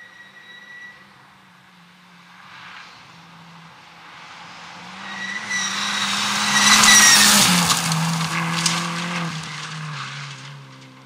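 Volkswagen Polo rally car approaching at speed on gravel and passing close by. The engine note and the hiss of tyres and flung gravel build to a loud peak about seven seconds in, then the note drops in pitch in steps and fades as the car goes away.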